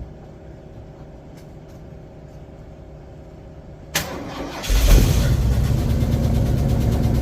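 A motor-vehicle engine is cranked about four seconds in, catches almost at once and keeps running loudly. Before that there is only a low steady hum.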